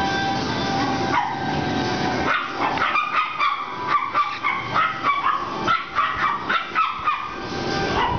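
Small chihuahua yapping in a rapid run of high, short barks, about three a second, from about two seconds in until near the end.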